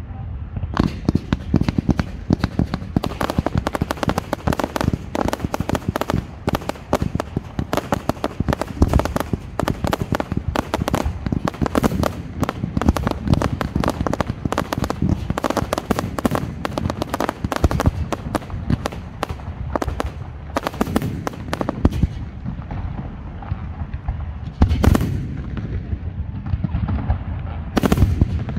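Aerial fireworks display: a dense, rapid string of bangs and crackling reports starting about a second in. It thins after about 22 s, then two heavy shell bursts come near the end.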